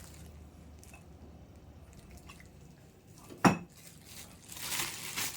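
Mostly quiet, then one sharp clink about three and a half seconds in as espresso machine accessories are handled, followed near the end by packaging rustling.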